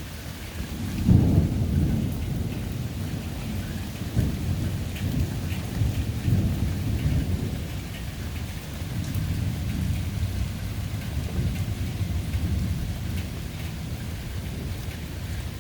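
Steady summer rain with a long roll of thunder: a sudden loud rumble about a second in, then low rolling rumbles that swell and fade several times over the next ten seconds.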